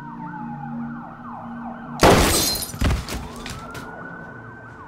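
Police sirens wailing, the pitch falling then rising again. About two seconds in comes a loud revolver gunshot with a crashing smear after it. A second sharp bang follows under a second later, then a few brief clatters, and a low drone under the sirens stops at the first shot.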